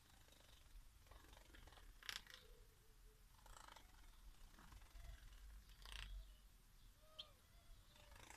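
Society finches bathing in a shallow water dish: faint splashes of wings in water, three of them at about two, three and a half and six seconds in.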